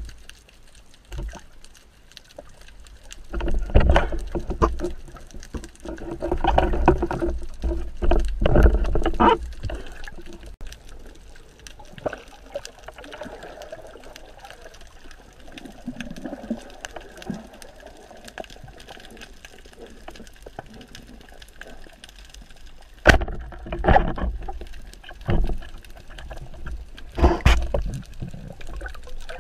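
Muffled underwater sound picked up by a diving camera: water rushing and bubbling gurgles that swell in several loud bursts. Later on there are a couple of sharp knocks.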